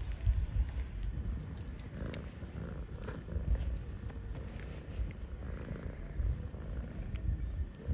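A cat purring right up against the microphone, a low, uneven throb.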